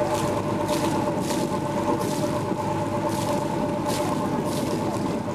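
A boat's engine running steadily, with a rushing hiss that swells and fades every second or so.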